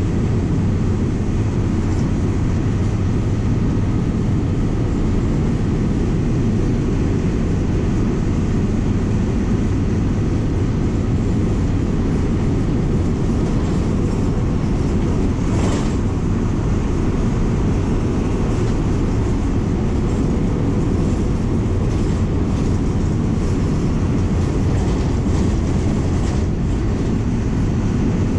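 MWM 6.12 TCE six-cylinder turbodiesel of a VW 17.230 EOD bus running steadily while the bus is under way, heard from inside the bus with road noise.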